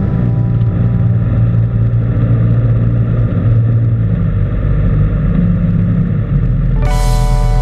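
Single-engine light aircraft's engine and propeller running steadily, heard from inside the cockpit during the landing approach, a low even hum. Music comes in near the end.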